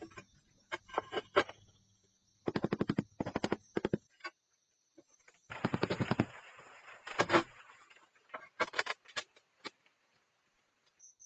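Rubber mallet tapping ceramic floor tiles down into a wet mortar bed, to seat and level them. It comes in quick runs of several taps a second, then a few single knocks near the end.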